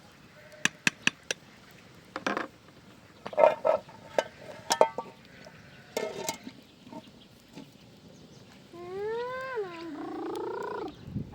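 Sheep bleating: two long, wavering bleats near the end, after a series of sharp knocks and clicks.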